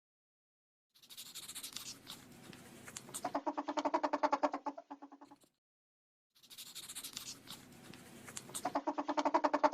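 An animal call heard twice in identical form. Each call starts with a hissy sound, then breaks into a fast run of quick pitched pulses.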